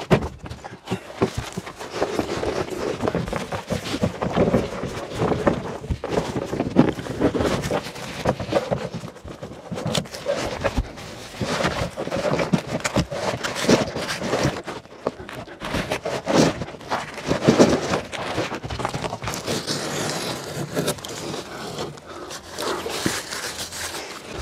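Scuffing and scraping as a large roll of breathable membrane is carried and squeezed through a narrow gap beside an OSB shed wall, with footsteps and breathing.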